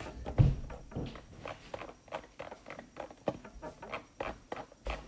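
Light, irregular clicks and taps, a few a second, with a low thump about half a second in and another near the end.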